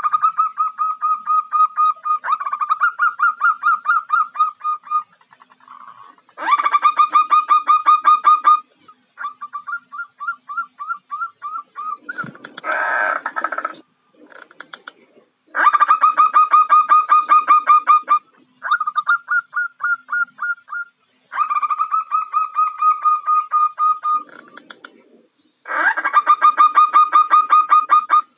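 Female zebra dove (perkutut) calling to a male: repeated bouts of rapid, trilled notes, about ten a second, each bout lasting one to three seconds with short pauses between, and a harsher, hoarser burst about halfway through.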